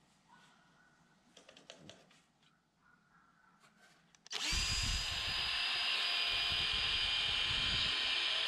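DeWalt 20V MAX XR cordless drill boring a pilot hole through a wooden board, its motor starting about four seconds in and running at a steady high speed to the end. A few faint handling clicks come before it.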